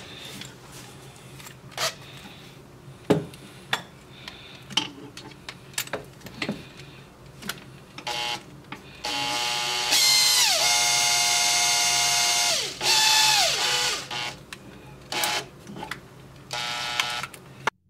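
Power drill spinning a skateboard-grip-tape foam hone on a flexible extension, roughing up the inside of a coolant fitting bore so adhesive will bond. Clicks and knocks of the tool against the engine parts come first. Then the drill whines in several bursts in the second half, its pitch falling each time it is let off.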